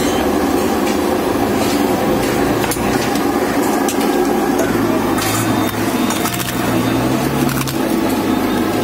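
Crisp roasted khichiya papad crackling and snapping in scattered sharp clicks as it is handled and pressed onto a paper plate, over a steady background rumble.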